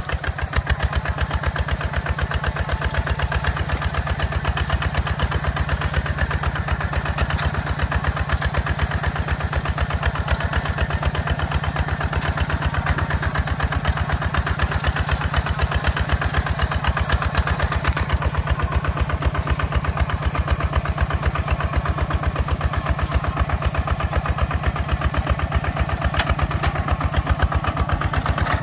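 Walk-behind two-wheel tractor engine running steadily, with a rapid, even chugging beat that holds constant throughout.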